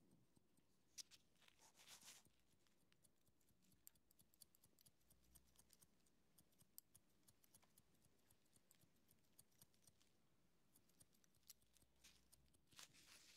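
Faint barber's scissors snipping through hair in quick, uneven runs of several light snips a second. A few louder, longer strokes come about a second in, at two seconds and near the end.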